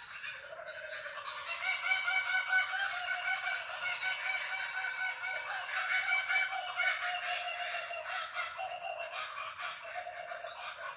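Kookaburras calling together in a continuous chorus of rapid, repeated notes that grows louder about a second and a half in.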